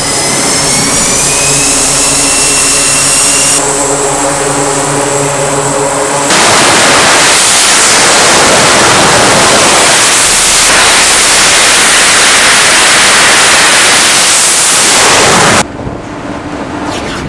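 F/A-18 Super Hornet jet engines running up on a carrier flight deck with a rising whine, then a loud, steady rush of jet noise from about six seconds in as the jet goes to full power and launches. The noise cuts off abruptly near the end, leaving a quieter rushing sound with a low hum.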